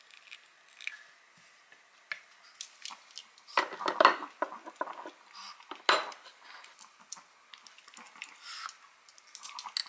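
Ceramic dog food bowls clinking and knocking, loudest about four and six seconds in as a bowl is set into its feeder stand. Lighter clicks follow as a small dog eats from the bowls.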